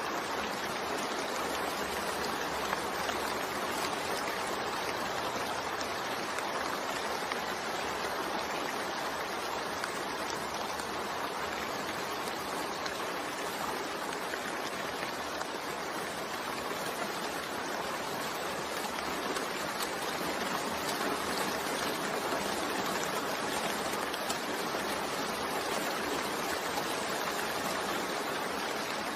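Steady rain falling: an even, unbroken hiss of many drops with no change in strength.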